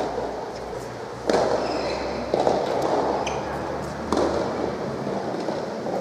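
Soft tennis rally: a few sharp pings of rackets striking the soft rubber ball, each echoing in a large indoor hall.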